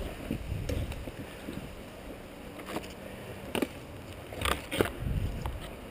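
Footsteps crunching through dry leaf litter and twigs, with handling and wind rumble on the helmet-mounted camera. Several sharp snaps or knocks come through, the loudest a pair about four and a half seconds in.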